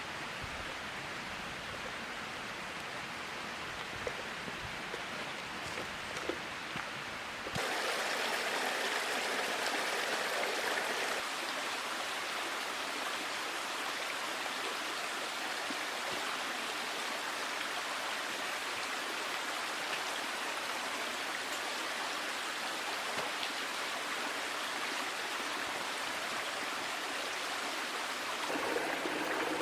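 Small creek flowing and babbling steadily. About seven seconds in the water sound suddenly becomes louder and brighter, and it shifts again near the end.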